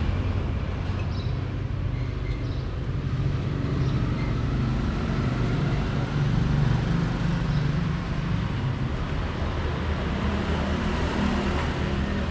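A running motor's steady low hum, with no pauses or sudden sounds.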